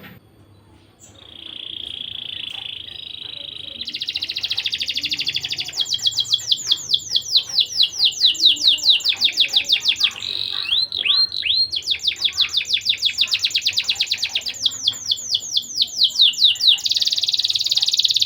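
Domestic canary singing in full song. A steady high trill starts about a second in and gives way to fast rolls and rapid runs of repeated down-slurred notes, with a few looping whistles a little past the middle, and it ends in a dense rolling trill.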